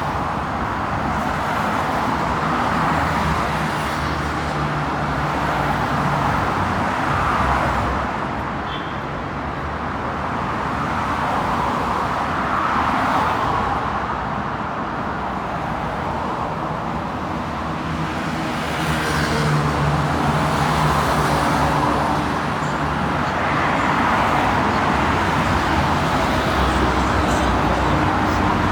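Busy city road traffic: a continuous mix of car engines and tyre noise, swelling and fading several times as vehicles go past.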